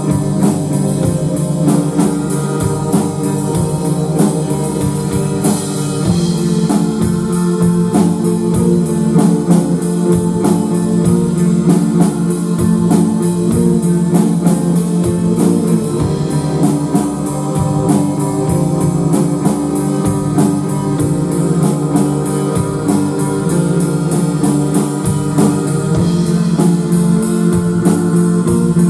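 Live instrumental rock band playing: electric guitar and keyboard sustaining dense chords over a steady drum kit beat, with no singing.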